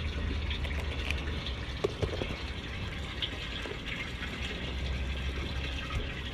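Small waves lapping and sloshing against a small boat's hull, over a steady low rumble, with a few faint clicks about two seconds in.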